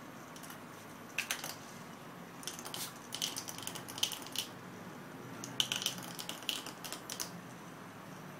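Quick runs of light clicks and taps on a ceramic tile floor as a puppy scrambles about, its claws and the small plastic toy it paws at clattering on the tiles. The clicks come in bursts, the first about a second in and two busy runs after.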